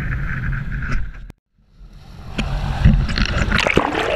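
Wind and sea noise on a sport-fishing boat's deck, cutting off abruptly a little over a second in; then water churning and bubbling around an underwater camera, with knocks and a heavy thump about three seconds in.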